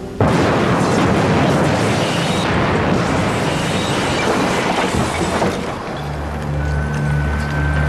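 Film sound effect of a bomb blast going off suddenly about a quarter second in, followed by several seconds of rumble and scattered clatter of falling debris. Near the end low music and a thin high held tone take over.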